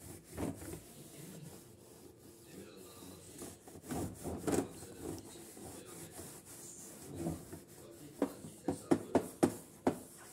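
A cloth rubbed back and forth over the face cover of a quartz wall clock, wiping it clean. About eight seconds in, the strokes turn into a quick run of sharper swipes, about four a second.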